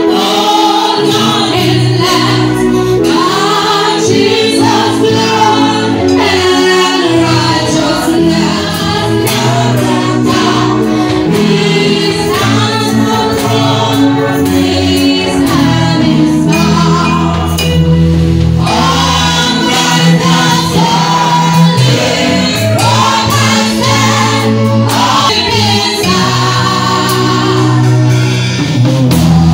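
Several voices singing a gospel song together, accompanied by a live church band with electric keyboard.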